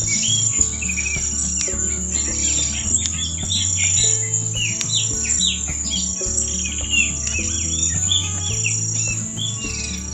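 Songbirds chirping and twittering in quick, overlapping phrases, with a steady high insect trill like crickets, over soft background music of low held notes that shift in steps.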